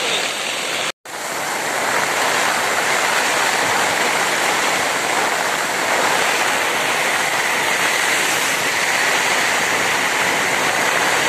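Heavy rain pouring down in a steady, dense hiss. The sound cuts out for an instant about a second in.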